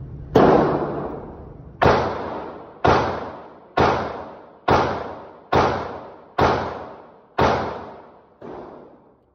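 Gunshots in an indoor shooting range: nine shots at a steady pace of about one a second, each a sharp crack with a fading echo trail, the last one fainter.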